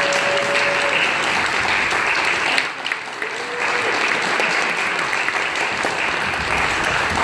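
Audience applauding steadily, with a brief dip about two and a half seconds in.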